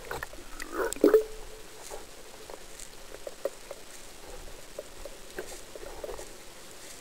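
Underwater sound through a camera housing: scattered small clicks and knocks as a spearfisher handles his speargun and its line, with one louder short gurgle about a second in.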